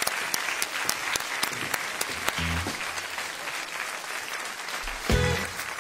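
Applause, a steady patter of clapping. A little after five seconds in, the band comes in with the first low notes of a song.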